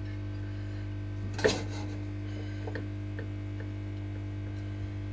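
Steady electrical mains hum, with one sharp knock about a second and a half in and a few faint ticks after it.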